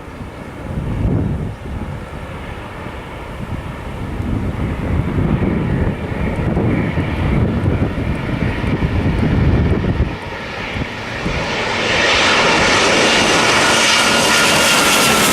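Boeing 787 jet engines (Rolls-Royce Trent 1000 turbofans) growing louder as the airliner comes in low and passes close overhead, with a high whine that drops in pitch near the end. Under it is a gusty low rumble of wind on the microphone.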